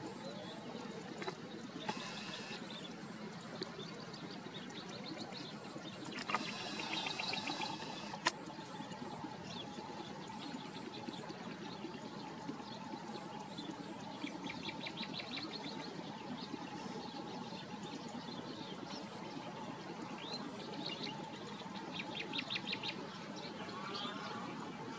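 Marsh ambience: a steady background hiss with runs of rapid, high bird chirps, about six seconds in and again near the end. A single sharp click comes about eight seconds in.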